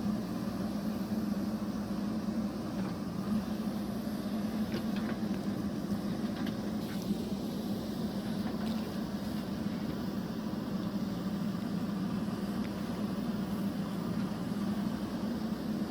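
A steady mechanical hum at an even level, with a few faint clicks about three to seven seconds in.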